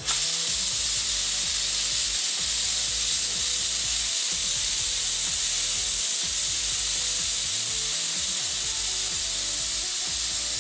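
Aluminium stovetop pressure cooker whistling as steam vents through the weight valve: a loud, steady hiss that starts abruptly. It is the sign that the cooker has reached pressure; each whistle counts toward cooking the dal.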